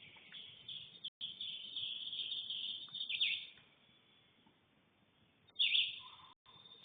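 Birds chirping and singing in high-pitched calls, with a couple of quick downward-sweeping notes, the loudest about three-quarters of the way through.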